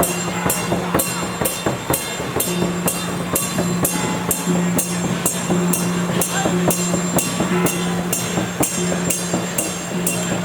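Temple procession percussion band playing: cymbals clashing in a steady beat about two to three times a second over drums, with a steady held low tone underneath.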